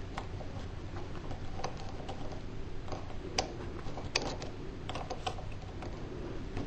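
Small tools and metal parts of a Cox model engine being handled during reed valve work: irregular light clicks and taps, two sharper ones in the middle, over a steady low hum.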